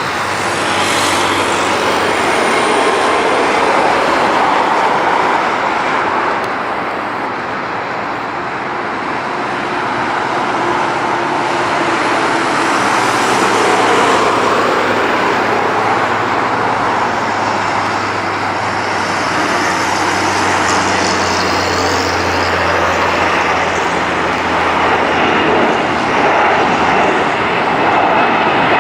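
Airbus A340-300's four CFM56 jet engines running at maximum takeoff thrust during a long takeoff roll: a loud, steady jet roar with a low hum that strengthens partway through and some higher whistling later on.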